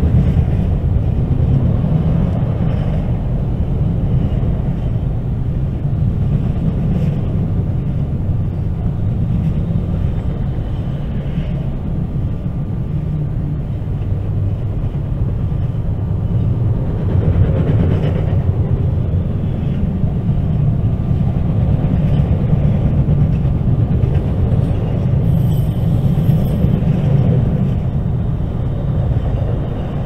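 Freight train moving: a steady, loud low rumble.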